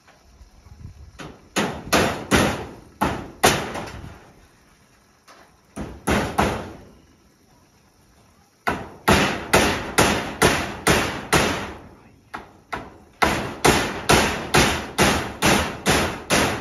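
Hammer driving nails at the edge of a roof, in runs of sharp blows of about two to three a second, with short pauses between the runs.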